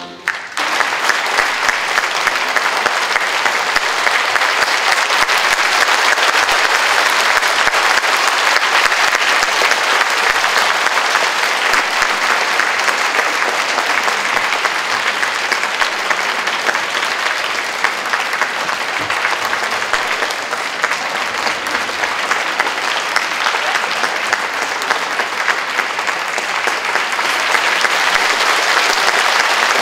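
Concert hall audience applauding: dense, steady clapping that begins as the music stops, eases slightly past the middle and swells again near the end.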